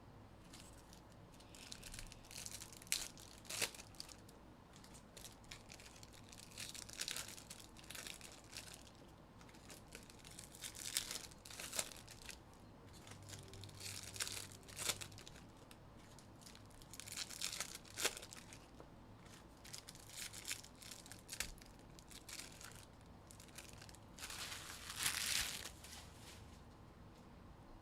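Wrappers of Topps Chrome baseball card packs being torn open and crinkled in repeated bursts every couple of seconds, with a few sharp clicks among them.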